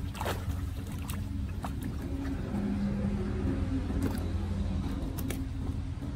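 Rubber boots and gloved hands sloshing through shallow muddy floodwater, with scattered short splashes over a steady low hum.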